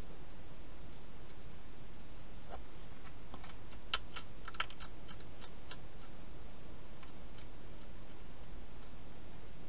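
Hedgehog crunching dry food: a scatter of small sharp clicks that bunch together about four seconds in, over a steady hiss.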